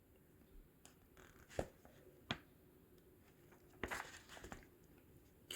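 A few faint paper rustles and soft clicks, a book's page being turned, in an otherwise near-silent small room.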